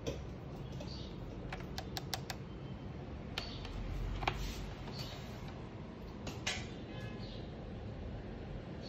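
Scattered light clicks and taps, about a dozen, irregularly spaced, the sharpest one about four seconds in, over a steady low hum.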